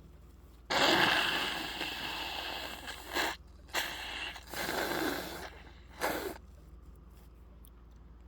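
A person breathing noisily through the nose: one long, forceful breath that fades over a couple of seconds, then four shorter breaths.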